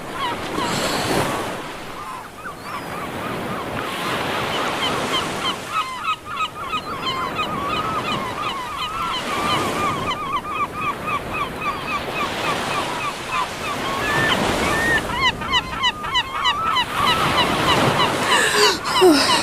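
Sea water bubbling and gurgling in many quick little chirps, as when someone ducks under the surface, over a steady wash of surf.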